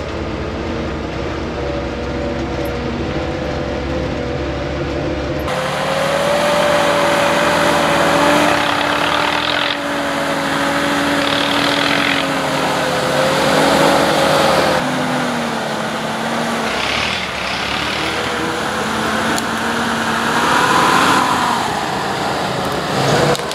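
GAZ-66 4x4 truck's engine running under load as it drives off-road, its pitch rising and falling with the throttle. It is heard from inside the cab at first, and from outside the truck after a sudden change about five seconds in.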